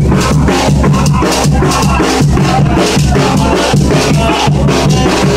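Music with a steady drum beat and bass line.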